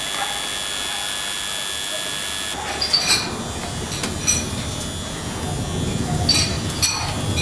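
A steady hiss with faint high whining tones, then a low scraping rumble and several sharp metallic clinks from loading work inside a steel shipping container.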